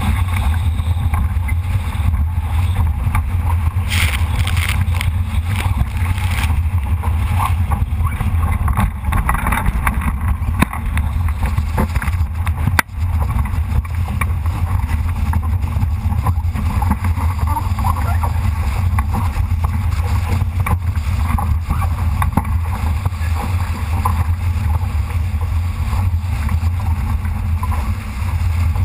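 Wind buffeting the microphone as a low, steady rumble, over water rushing and splashing along the hull of a Solo sailing dinghy under way in strong wind. A single brief knock comes about thirteen seconds in.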